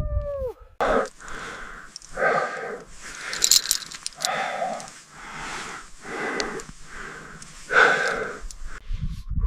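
Heavy, labored breathing from a hiker straining up a steep rocky climb, about one loud breath a second.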